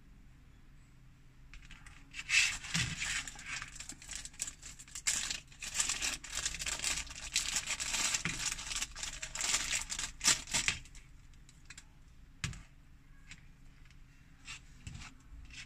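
Clear plastic packaging bag crinkling and rustling as it is handled, starting after a second or two and stopping about eleven seconds in, followed by a few light clicks.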